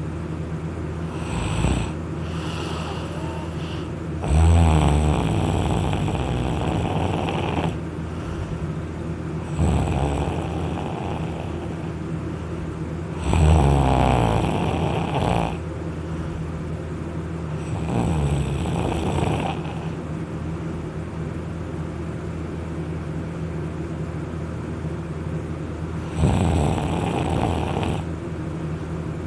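A person snoring heavily in irregular bouts, each one to three and a half seconds long, with a rattle in the low end and a longer pause near the end. It is the loud snoring of someone sleeping on their back after drinking alcohol.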